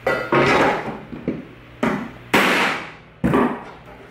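Hammer blows on the coffee grinder's bent metal bottom plate against the edge of a workbench, tapping it straight: about six sharp strikes at an uneven pace, each ringing out briefly.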